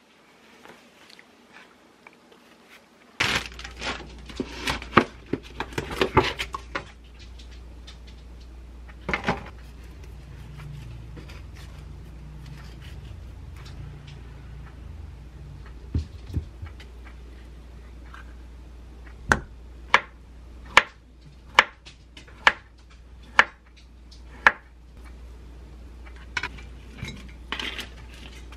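Kitchen food-prep sounds: a kitchen knife cutting an avocado on a wooden cutting board, tapping the board sharply about once a second in a run near the middle. Dishes and utensils clink now and then.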